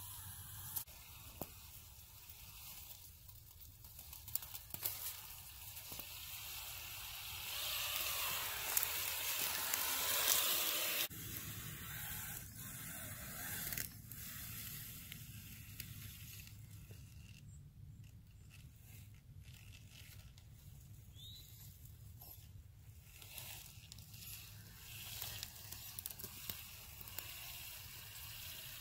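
RC off-road truck crawling through wet mud, grass and a shallow puddle: tyres squelching, with crackles of dry grass and twigs. A louder hissing stretch about eight to eleven seconds in cuts off suddenly.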